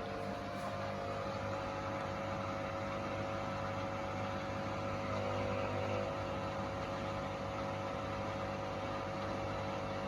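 Hoover Link washing machine's drain pump running on a drain cycle, a steady hum.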